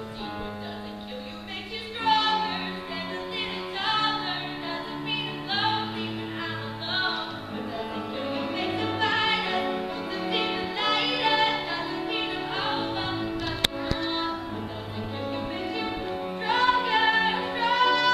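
A woman singing solo over held accompaniment chords; the accompaniment sounds alone at first and her voice comes in about two seconds in. A single sharp click about three-quarters of the way through.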